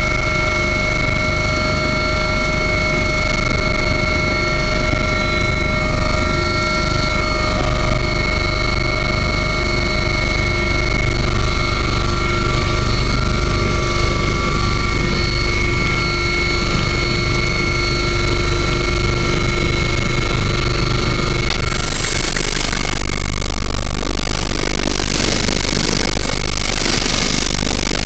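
Helicopter turbine engine and rotor running steadily, a constant whine over a low rumble. About three-quarters of the way through, the whine drops out and a loud rushing noise remains.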